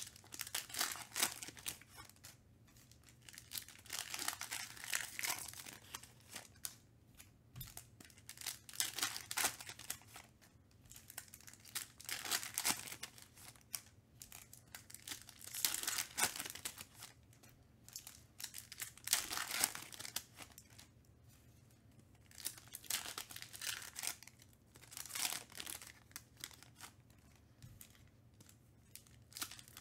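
Shiny Panini Donruss Optic basketball card-pack wrappers crinkling and tearing as packs are opened, with cards shuffled onto a stack. The sound comes in about eight short bursts, a few seconds apart.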